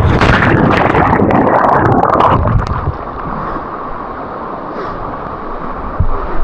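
Loud splashing and churning water with crackling bubbles for the first two and a half seconds, settling into a steady rushing noise: a swimmer going into the water to check its depth.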